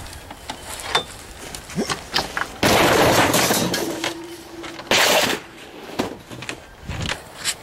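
Scrap metal being thrown onto a pile: lighter knocks and clatters, then a loud metal crash that fades with a ringing tone, and a second, shorter crash about two seconds later.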